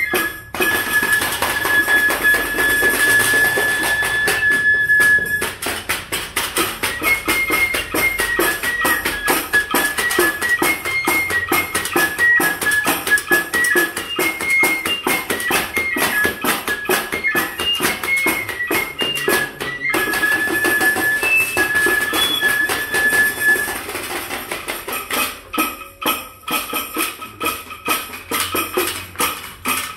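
Bamboo flute playing a high melody, opening on a long held note, over a busy, fast clatter of bamboo percussion and a foot-pedal cymbal. The flute drops out about three-quarters of the way through, leaving the percussion going on its own.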